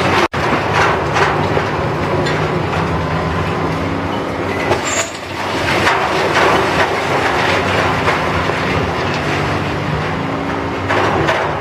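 Heavy demolition machinery running with a steady low engine hum while broken concrete, brick and metal clatter and fall from a building being torn apart. The sound cuts out for an instant just after the start.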